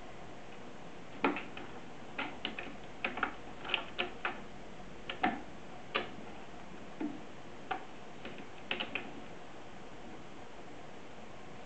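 A cat pawing and clawing at a cat tree and the ball toy hanging from it: irregular light taps and clicks, coming in quick clusters of a few at a time.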